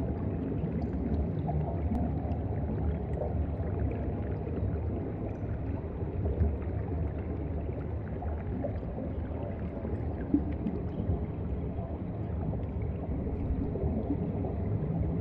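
Steady low underwater rumble of moving water, with a few faint clicks.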